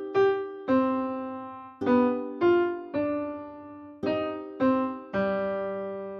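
A short keyboard melody of about nine separate notes, each struck and dying away, the last one held and fading out near the end. It is an ear-training statement to be judged as major or minor in tonality.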